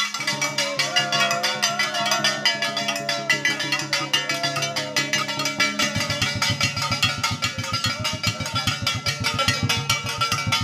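Traditional drumming: a large double-headed drum beaten with a stick under a dense, fast clatter of sharp percussion strokes, with a wavering melodic line over the first half. From about six seconds in, deep drum strokes fall in a quick steady beat.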